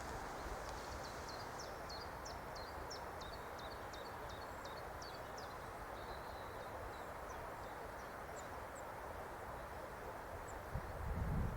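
A small songbird singing a run of quick, sharp falling notes, about three a second, for about five seconds, over steady outdoor background noise; a low rumble of handling or wind on the microphone rises near the end.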